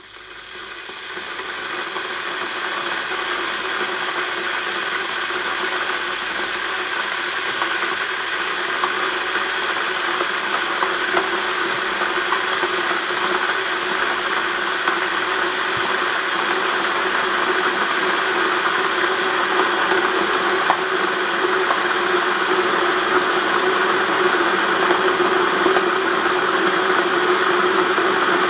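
Russell Hobbs electric jug kettle heating water: a steady rushing noise that swells over the first two seconds and keeps slowly growing louder as the water heats towards the boil.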